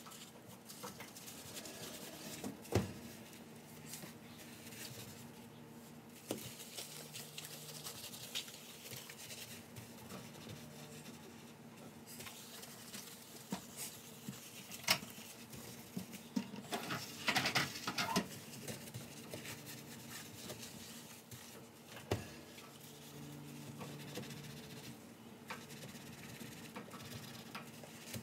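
Kitchen cleaning by hand: scattered light knocks and clicks of things being handled and set down, with a busier clatter a little past halfway, over a faint steady hum.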